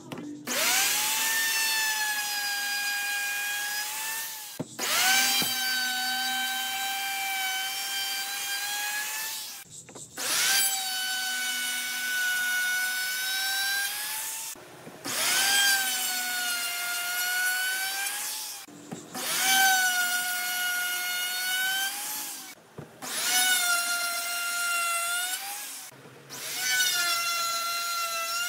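Electric plunge router cutting rounded grooves into a wooden board, with a high whine from the spinning bit. It runs in about seven passes of a few seconds each, with short breaks between them. Each pass opens with the whine rising as the motor spins up.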